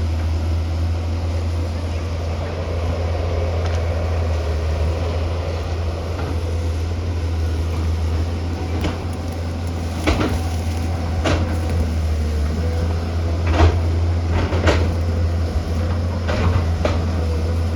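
Tata Hitachi excavator's diesel engine running steadily with a deep hum, joined from about ten seconds in by about six sharp knocks spaced a second or two apart.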